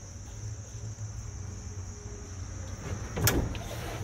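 Crickets chirring steadily in one high unbroken tone over a low rumble, with one sharp clunk and a short rattle about three seconds in.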